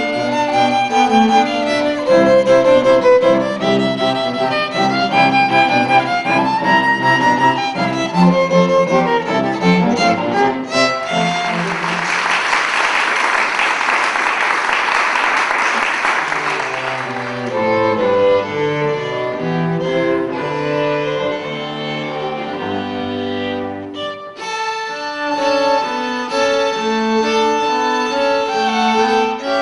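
Small string ensemble of violins and cello playing a classical piece that ends about eleven seconds in. Audience applause follows for about six seconds, then the strings start playing again.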